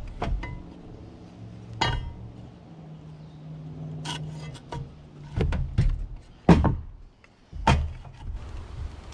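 Short 2x4 blocks and a metal speed square being handled and set down on a miter saw's table: a handful of separate knocks and clinks of wood and metal, with pauses between them.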